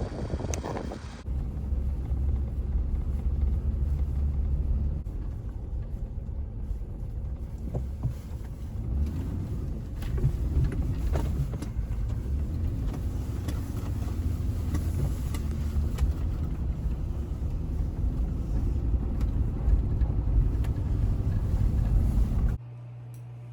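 Pickup truck driving, a steady low rumble of engine and road noise. Near the end it cuts off abruptly to a quieter steady low hum.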